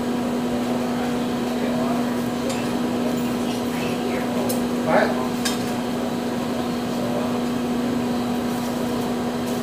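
Steady low hum throughout, with a few light metallic clinks as iron and tongs are worked in the coal fire of a blacksmith's forge. A short sound that bends in pitch, the loudest moment, comes about halfway through.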